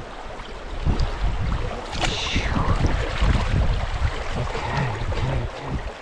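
Wind buffeting the microphone in uneven gusts over the steady rush of creek water. About two seconds in there is a brief falling whistle.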